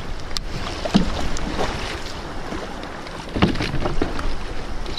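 Choppy water slapping and splashing against a Hobie kayak's hull, with wind rumbling on the microphone. Two louder splashes stand out, about a second in and about three and a half seconds in.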